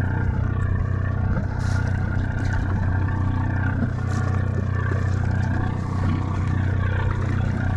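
Party boat's engine running at a steady low drone, with an even hum and no change in speed.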